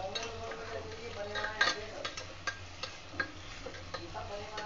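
A metal spoon stirring onions frying in oil in an aluminium pressure cooker, scraping and knocking against the pot in short, irregular clicks.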